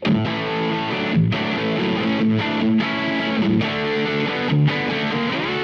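Electric guitar played through a Mozztronics GD-1 Bone Breaker overdrive pedal: a run of overdriven chords and notes, broken by short gaps about once a second.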